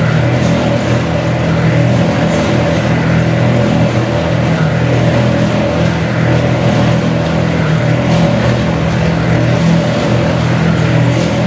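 Screw oil expeller running under load: a loud, steady mechanical drone with a higher tone over it, as the press squeezes seed and pushes out flakes of oil cake.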